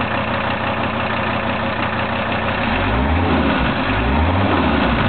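Mercedes 617 five-cylinder turbo diesel running just after starting, freshly bled of the air that had locked its fuel system. It idles, then is revved briefly twice in the second half, the pitch rising and falling each time.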